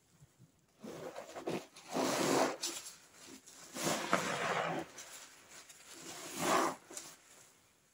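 Three bouts of rough rubbing noise, each about a second long, with quiet gaps between them.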